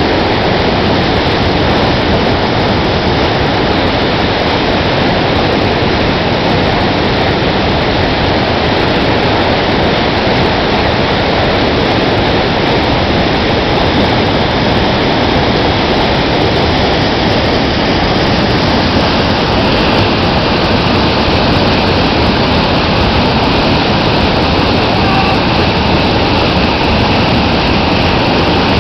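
Rushing whitewater of a river rapid, a loud steady noise.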